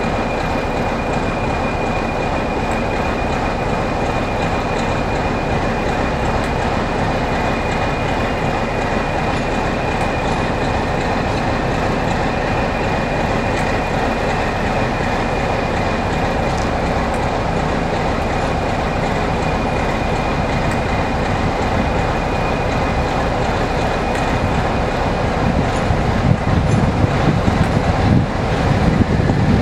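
Class 56 diesel locomotive 56097 approaching slowly, its Ruston-Paxman 16-cylinder diesel engine running steadily with a high whine over the drone, growing louder in the last few seconds as it draws near.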